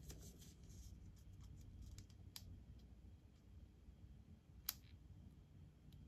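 Near silence with a few faint, sharp clicks from a pointed metal craft tool handling a clear plastic sticker on a paper planner page. The clearest click comes a little before halfway, and a louder one comes about three-quarters through.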